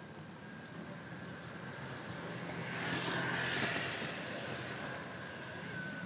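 A vehicle passing by: a rushing noise with a thin steady whine that swells to its loudest about three and a half seconds in, then fades.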